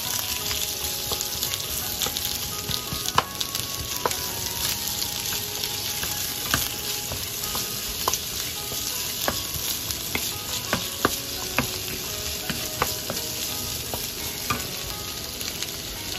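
Sliced onions and garlic sizzling in hot oil in a metal pot as they are stir-fried with a wooden spatula: a steady frying hiss with scattered light knocks and scrapes of the spatula against the pot.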